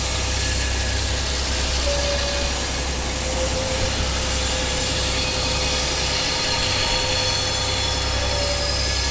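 DC-class diesel-electric locomotive working a container train up a grade on a tight curve: a steady low engine drone under the rumble of the train, with thin high squeal tones from wheels on the curve coming and going.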